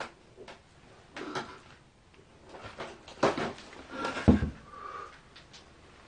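Scattered knocks and scuffs of someone moving about in a small room, the loudest a dull thump about four seconds in, followed by a brief squeak.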